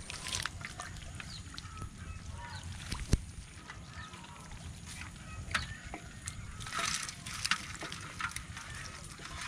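Small live fish flapping and splashing as a ring net trap is shaken out into an aluminium pot, with water sloshing and a sharp knock about three seconds in. The flapping and splashing are loudest around seven seconds in. A few short animal calls sound in the background.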